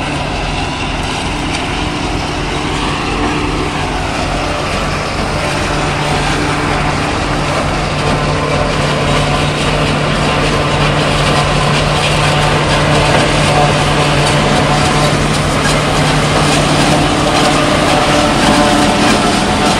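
A 90 hp Sonalika tractor's diesel engine runs under steady load, powering a DEP Celikel two-row silage harvester that chops the standing crop and blows it out through its spout. It is a continuous mechanical drone with a steady hum, growing gradually louder.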